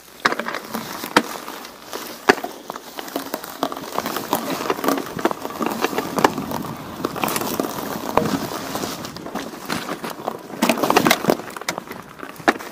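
Footsteps crunching along a path, with many irregular sharp crackles and clicks, picked up by a camera strapped to the walker's chest.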